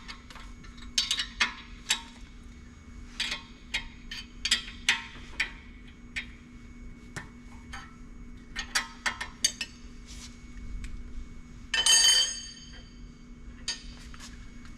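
Metal clinking as the lug nuts holding the brake lathe's hub adapter are loosened and taken off with a wrench: a string of short clinks, with a louder ringing clank about twelve seconds in.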